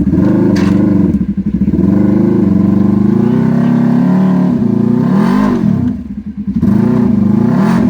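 Side-by-side UTV engine revving under load as the machine is backed up off an obstacle. The revs rise and fall twice in the second half.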